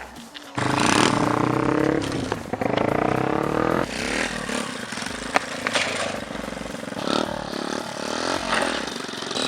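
Honda Monkey minibike's small single-cylinder engine revving, its pitch rising and falling several times. It cuts in suddenly just over half a second in, with a few sharp clicks and scrapes over it.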